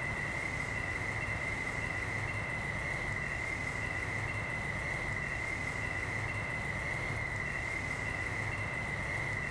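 Night insects, crickets, trilling in a steady unbroken high note, with a fainter chirp just above it repeating a couple of times a second over a low rumble.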